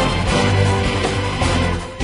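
Background music with a heavy bass line.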